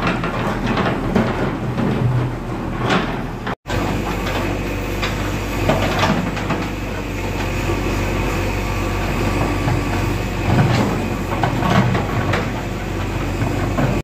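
JCB backhoe loader's diesel engine running steadily while its bucket scrapes and clatters through broken asphalt and earth, with scattered knocks. The sound cuts out for an instant about three and a half seconds in.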